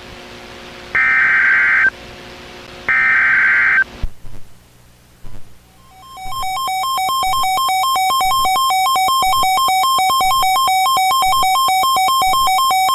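NOAA Weather Radio SAME digital data bursts, the end-of-message code: two harsh electronic bursts about a second long and a second apart. After a short gap, the weather radio's long warning alert tone fades in about six seconds in and holds steady for about seven seconds.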